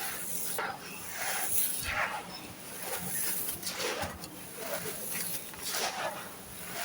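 Dry, gritty sand-cement chunks crunching and crumbling as they are crushed, in irregular crackly bursts about every half second to a second.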